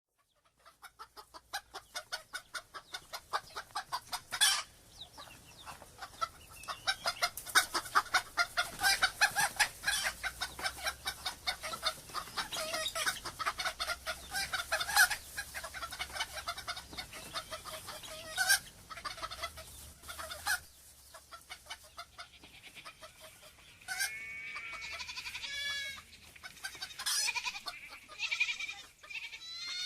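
Flock of chickens clucking busily, many short calls overlapping, for most of the stretch. After a short lull, a rooster crows twice near the end, with another crow just beginning.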